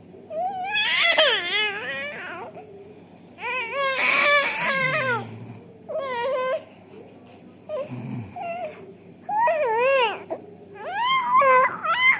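Five-month-old baby fussing and crying in about six short, high, wavering wails with short pauses between them.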